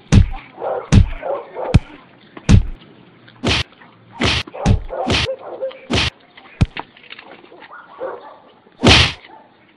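A string of about ten sharp, loud sound-effect bangs at uneven intervals, with faint rustling between them; the last, near the end, is the loudest.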